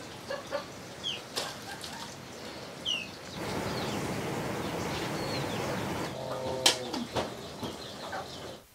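Small birds chirping, with drips and small splashes as wet shredded bamboo shoots are squeezed by hand over a bowl of water. After about three seconds a louder steady hiss with sharp crackles takes over, from the wood fire and the wok set on it, and it cuts off just before the end.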